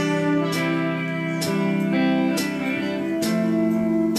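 Live band playing, led by strummed guitar chords, a new chord struck about once a second over held notes.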